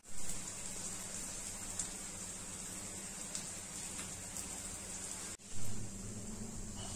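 Steady background hiss. It cuts out abruptly twice, right at the start and about five and a half seconds in, with a short louder swell of noise after each cut.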